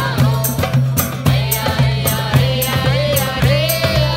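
Live acoustic folk music from a small street band: hand drums beat a quick, steady rhythm with deep thuds under strummed acoustic guitars, while a voice sings a winding melody over them.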